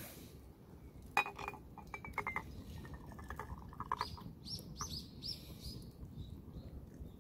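A metallic clink about a second in, then liquid glugging from an enamel kettle's spout into an enamel mug, with small bubbling chirps as it pours.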